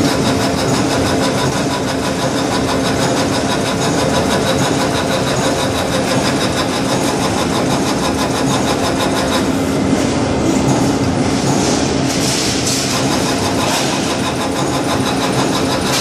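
Sausage-making machine running steadily with a constant motor hum as it pushes out sausage meat, with hissing pulses in the last few seconds.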